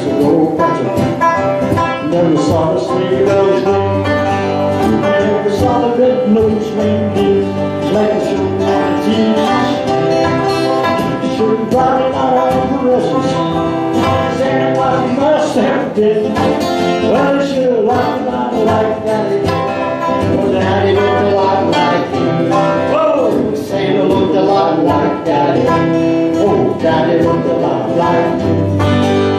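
Live country band playing an instrumental break on acoustic guitars, strumming and picking a steady country tune.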